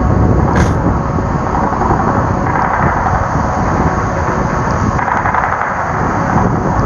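Steady rumbling rush of wind and breaking surf, with a loud low buffeting like wind on the microphone.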